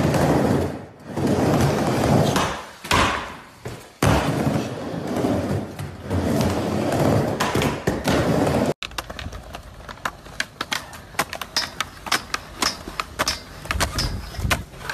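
Skateboard wheels rolling on a ramp, the rumble swelling and fading with each pass. From about nine seconds in, quieter rolling with many sharp clicks and knocks of a board and trucks against concrete and a rail.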